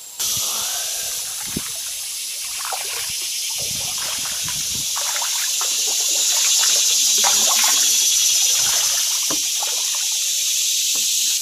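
Cicadas singing in the summer trees: a steady, high-pitched drone that swells slightly past the middle. Under it, a kayak paddle dips and drips in the water.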